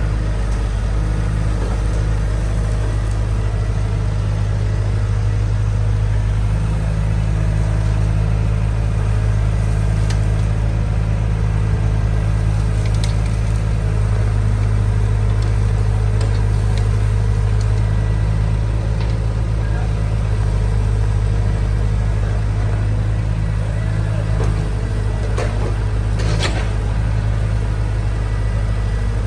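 Engine of heavy machinery running steadily at a constant speed, with a few sharp clicks and knocks, the loudest about 26 seconds in.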